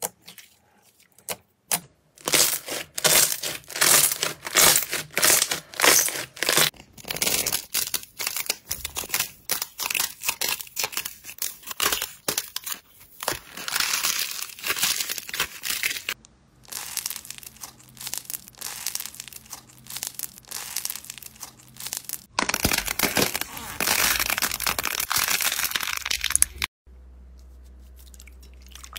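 Slime being squeezed and kneaded by hand: a few sharp pops at first, then long runs of dense crackling and crunching from a crunchy foam slime. Near the end the crackling stops and it turns quiet, with a steady low hum.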